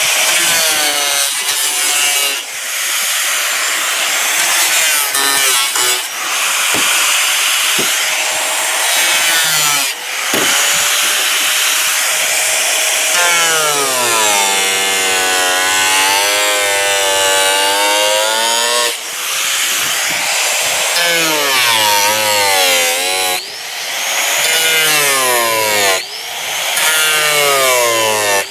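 Electric angle grinder cutting and trimming thermoformed acrylic sheet, its whine wavering up and down in pitch as the disc bites into the plastic, with a few brief dips where it eases off.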